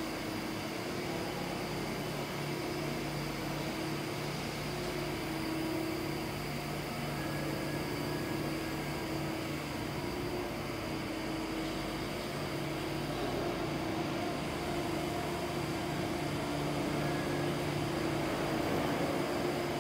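Steady machine hum of an idling CNC machining center, with a low drone and its overtone that waver slightly, and a faint high whine.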